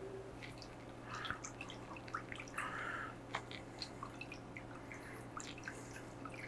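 A whisk stirring a thin lemon-juice marinade in a glass mixing bowl: faint liquid swishing with light, irregular clicks.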